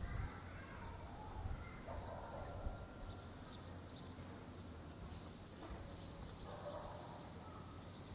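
Small birds chirping in quick, high series over a faint low rumble, with a few brief soft thumps in the first three seconds.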